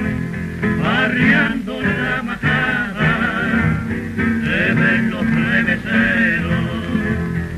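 Two male voices singing in duet over two guitars, played from an early-1930s 78 rpm record.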